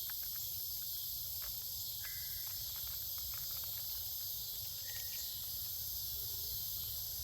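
Steady high-pitched chorus of insects, with a low rumble underneath. There are scattered faint clicks and two short chirps, about two and five seconds in.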